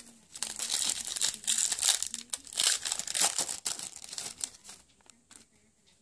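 Gold foil wrapper of a Leaf Just baseball card pack being torn open and crinkled in the hands: a dense crackling for about four seconds, dying down near the end to a few light rustles as the cards are slid out.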